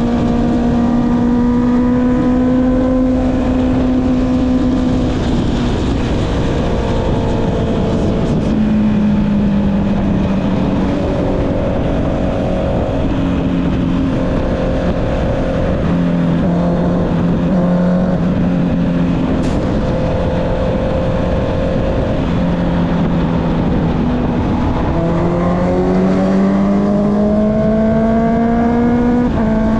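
Honda CB650R's inline-four engine through an Akrapovic exhaust, heard from the rider's seat while riding. The engine note holds fairly steady with small rises and falls in speed, then climbs under acceleration near the end and drops suddenly at a gear change.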